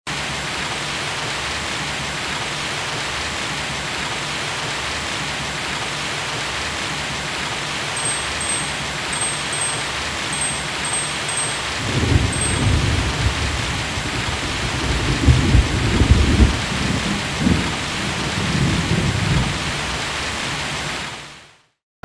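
Steady heavy rain with rolls of thunder rumbling from about halfway through. A few faint, high tinkles sound just before the thunder starts, and the rain fades out near the end.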